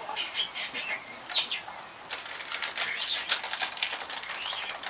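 High-pitched chirping squeaks, then from about two seconds in a rapid run of rustling and clicking as the animals move and feed.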